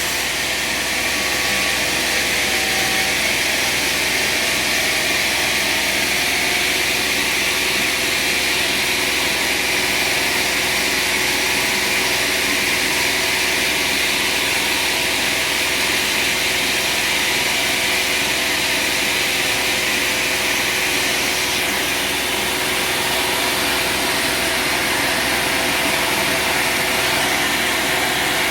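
Sawmill machinery running steadily, an engine-driven drone with a hiss over it that holds unchanged throughout.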